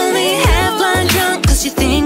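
Pop song: a female voice singing over a beat of deep kick drums that drop in pitch, with a synth bass.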